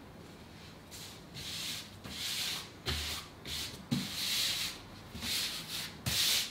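Hands sliding and smoothing a paper template sheet over a 9mm MDF board: a string of short swishing rubs, roughly one a second, with a few light knocks in between.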